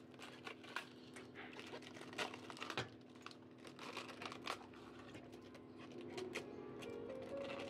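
Crisp snapping and crackling of mustard green stalks and leaves being pulled off the head by hand, a string of irregular sharp clicks. Soft music comes in near the end.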